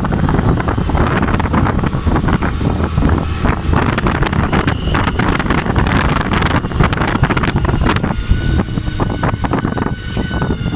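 Wind buffeting a moving microphone, mixed with road traffic and engine noise. A steady pitched tone with overtones joins near the end.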